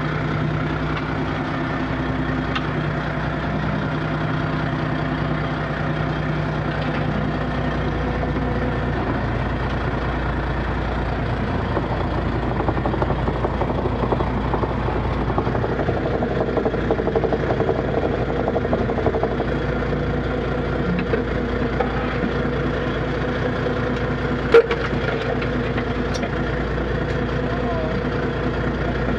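Small fishing boat's engine and net hauler running steadily with a constant hum while a trammel net is hauled aboard, with one sharp knock about 24 seconds in.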